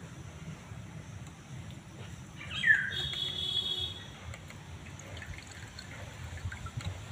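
Wax apple juice dripping and trickling as grated pulp is squeezed by hand through a small metal tea strainer into a glass. A bird gives one falling chirp about two and a half seconds in, followed by a brief high trill.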